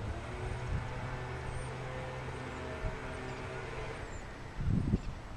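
Steady hum of a vehicle engine that fades out about four seconds in, with faint bird chirps above it. A brief loud low rumble comes near the end.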